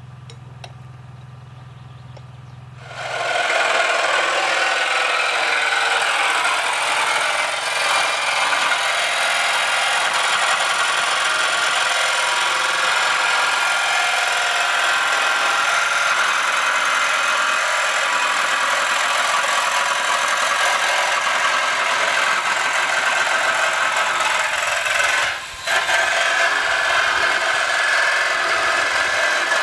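A power tool starts about three seconds in and runs steadily at high speed, dropping out briefly near the end before running on, while a metal gutter is being worked.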